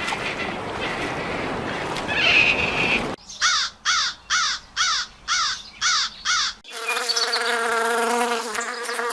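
Animal sounds in quick succession. About three seconds of noisy hiss with a brief chirp are followed by seven short, evenly repeated calls at about two a second. The last few seconds hold a steady, pitched buzz like an insect's wings.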